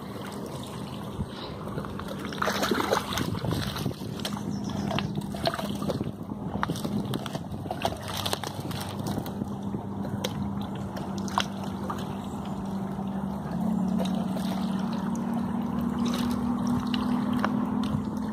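Shallow river water sloshing and splashing as a pit bull wades and tugs at a floating log, with scattered sharp splashes. A steady low hum runs underneath and steps up slightly in pitch about two-thirds of the way through.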